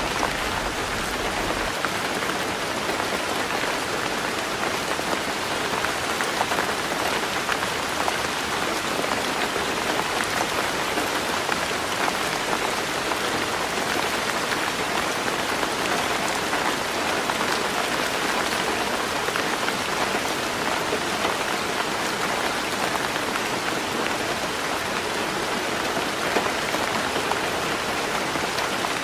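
Heavy rain falling steadily on a roof, a dense even hiss of raindrops. A low rumble fades out about two seconds in.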